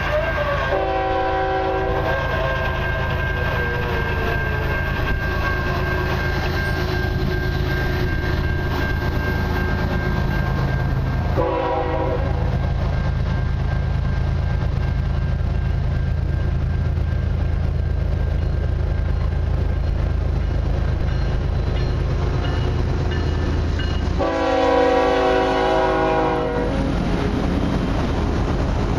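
Horn of a CN freight train's lead GE GEVO diesel locomotive sounding for a grade crossing as it approaches: two short blasts about ten seconds apart, then a longer, louder one near the end. Under it is the steady drone of the locomotive diesel engines, which come close near the end.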